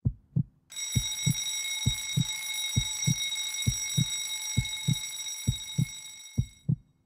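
Heartbeat sound effect: a slow, steady lub-dub, about one double beat a second. From about a second in, a steady high-pitched ringing tone sounds over it and fades out near the end.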